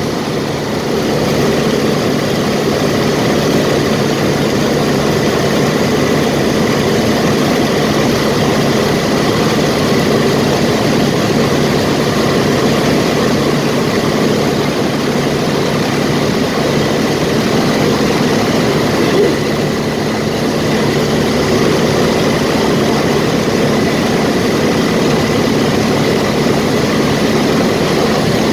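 Ercoupe light aircraft's piston engine and propeller running steadily in cruise flight, heard from inside the cockpit as an even drone with a thin steady high tone through it.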